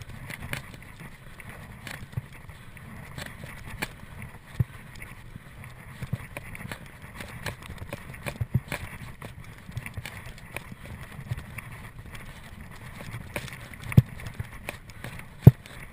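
Mountain bike ridden over rough trail: steady low rumble with irregular knocks and rattles from the bike jolting over bumps, two sharper knocks near the end.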